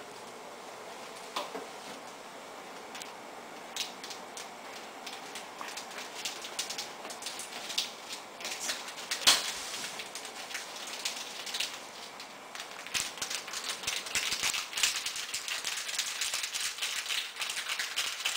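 Maggi noodles being stirred and broken apart with a utensil in a stainless-steel pot of boiling water: bubbling and crackling with clicks of the utensil against the pot, getting busier through the second half, and one sharper knock about nine seconds in.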